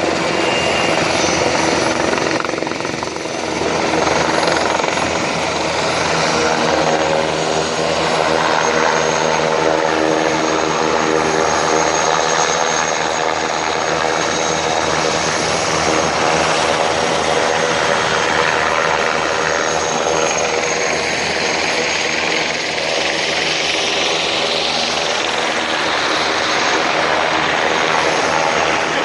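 Military helicopters running close by, a loud, steady mix of rotor beat and turbine engine noise.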